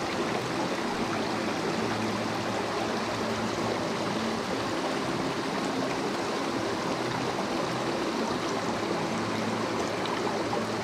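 Mountain stream running steadily, an even rush of water with no break.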